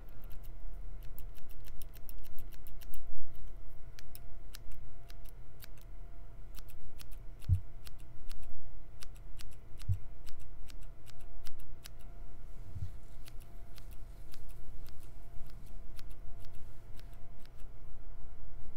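Scissors snipping close to the microphone in quick, irregular runs of crisp snips, as in a haircut trim. A few soft low thumps come in around the middle.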